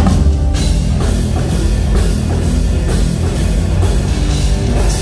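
Live rock band with a drum kit and electric guitars playing loud, heavy rock over a steady beat, with the full band coming in at the start.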